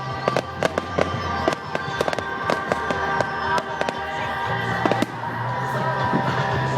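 Fireworks going off in rapid crackles and bangs, several a second, over music with long held notes.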